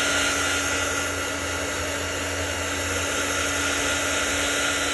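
Handheld electric heat gun running steadily, a rush of blown air with a low hum and a faint whine, passed over wet epoxy resin to pop surface bubbles.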